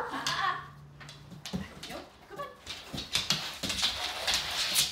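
A dog whines softly a couple of times, then a busy run of clicks and scuffles sets in from about halfway through.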